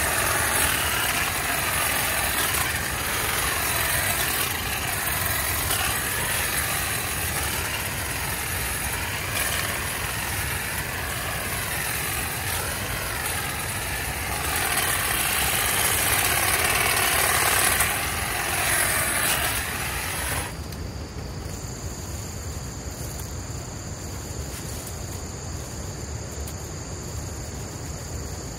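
Hedge trimmer running and cutting back overgrown brush, its motor whine rising and falling as the blades load up, then switched off about twenty seconds in. Insects keep up a steady high buzz afterwards.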